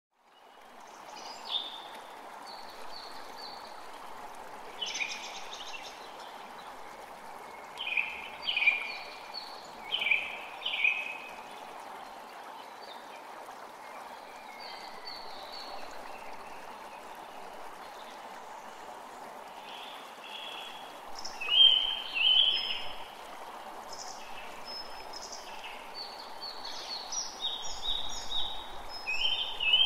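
Forest creek running steadily, with birds singing over it in clusters of short, high chirps that come and go; the loudest calls come a little past the middle.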